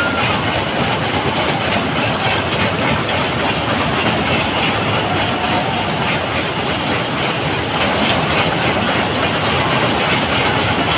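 Fairground ride running at full speed, its cars whirling around a tilted circular track with a steady, loud rumble of wheels and drive.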